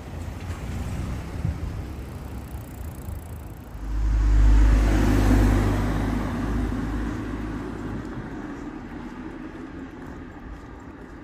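A motor vehicle drives past close by. Its engine hum and tyre noise swell suddenly about four seconds in, then fade away over the next several seconds above steady street noise.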